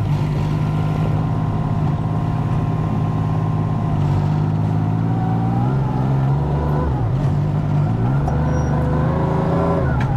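Kubota R430 wheel loader's diesel engine running, heard from inside the cab. The engine note is steady, then dips and rises a few times in the middle as the loader is worked.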